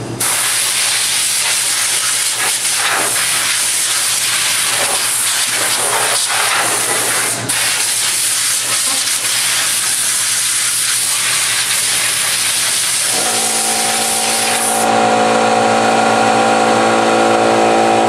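Compressed air hissing loudly from a blow gun as it blows dust out of a refrigerator's condenser coil, with one brief break about halfway. Near the end a small portable air compressor's motor starts up and runs with a steady pitched hum, and the hissing stops soon after.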